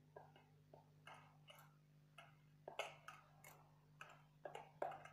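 Semolina dough being kneaded by hand with sour buttermilk in a steel bowl: irregular soft squishes and small clicks of fingers pressing the wet mix against the metal, two of them sharper about three seconds in and near the end. A faint low hum runs underneath.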